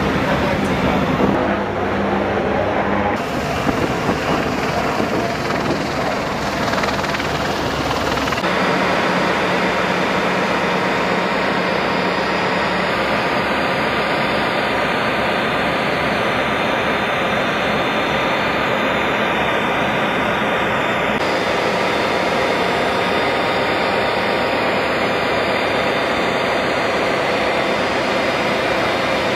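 Loud, steady mechanical roar of heavy machinery with faint steady tones running through it. The sound shifts abruptly about three seconds in and again about eight seconds in, then holds steady.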